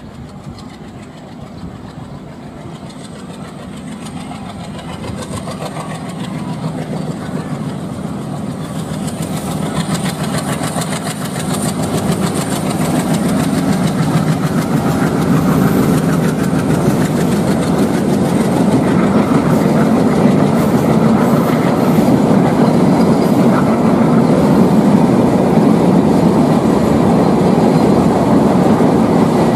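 Bangladesh Railway intercity express train approaching, its sound building steadily for about fifteen seconds, then a loud, steady noise of coaches rolling past on the track.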